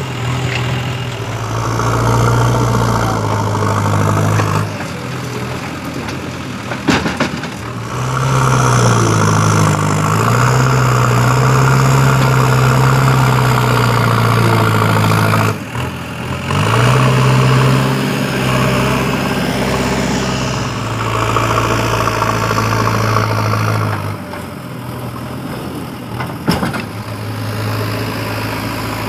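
JCB backhoe loader's diesel engine running and revving up and down as it digs and loads soil, with two sharp knocks along the way. The engine sound changes abruptly a few times.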